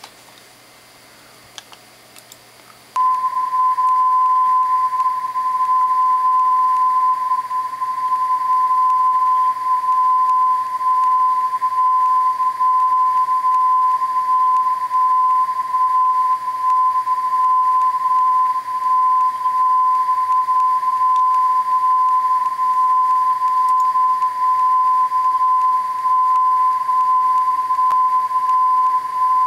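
Heavily filtered very-low-frequency radio recording, picked up on a cheap atomic clock's ferrite antenna, played back from the computer as a single steady high tone that wavers slightly in level; it starts about three seconds in after a quiet stretch. The uploader first took it for the WWVB 60 kHz time signal but later judged it more likely modulated 60 Hz mains hum.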